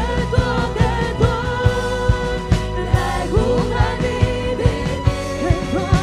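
Christian worship music: a band playing a steady beat under sustained keyboard chords, with a voice singing a melody over it.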